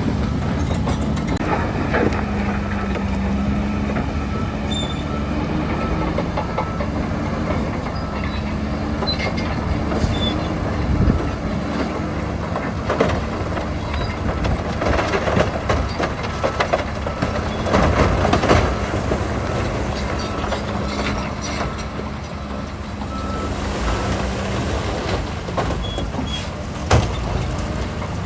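Heavy diesel earth-moving machinery running, with steady engine noise and irregular metallic clanking and knocks of tracks and rock, a few louder knocks past the middle.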